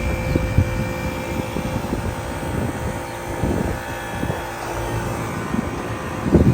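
Rooftop HVAC unit running: a steady fan and compressor hum with a few constant tones over an uneven low rumble. A brief louder rumble comes near the end.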